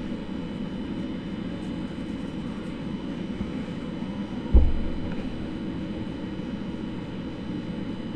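Steady low background hum with no speech, with a single dull thump about four and a half seconds in.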